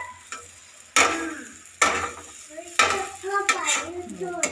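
A flat metal spatula scraping and stirring a green chili-ginger paste in a metal kadhai, with sharp scrapes about once a second over the sizzle of the paste frying in mustard oil as it is dried out.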